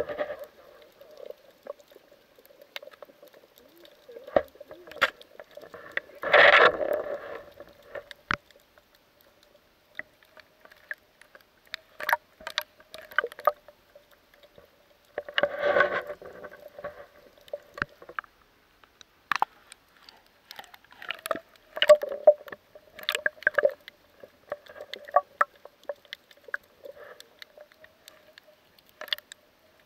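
Muffled underwater sound picked up through an action camera's waterproof housing: scattered sharp clicks and crackles over a faint steady hum, with two longer rushes of noise, about six and fifteen seconds in.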